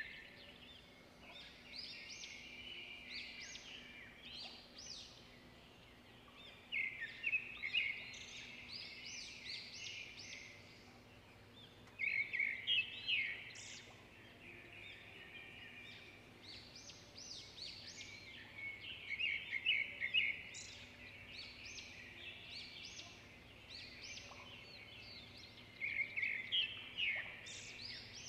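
A small songbird singing: loud bursts of rapid chirps and trills every five to seven seconds, with quieter twittering between them.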